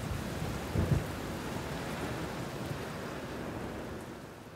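Steady rain with low rumbles of thunder at the start and about a second in, fading out near the end.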